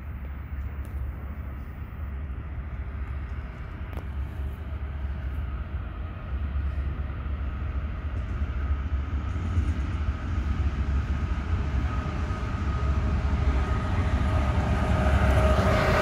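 Two DXC-class diesel-electric locomotives approach at the head of a freight train: a low engine rumble that grows steadily louder. Faint steady tones rise with it in the last few seconds as the locomotives draw level.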